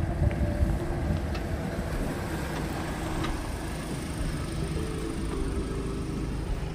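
Mahindra Thar 4x4 engine running steadily at low revs as the vehicle crawls over an off-road obstacle.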